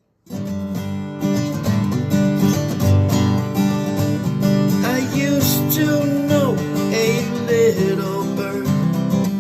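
Acoustic guitar playing the intro of a song, coming in about a quarter second in.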